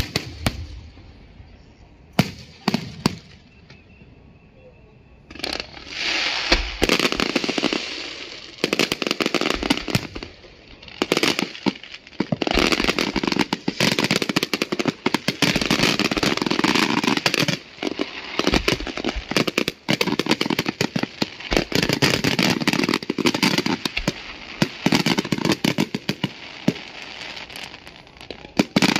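Aerial firework shells bursting overhead: a few separate bangs in the first few seconds, then about five seconds in a dense barrage of rapid bangs and crackling.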